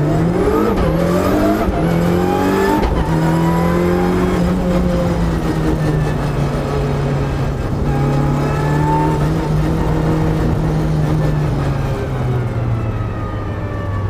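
Mitsubishi Lancer Evo race car's turbocharged four-cylinder engine heard from inside the cabin under hard acceleration: revs climb, a quick upshift comes about three seconds in, then the engine holds high revs before easing off near the end.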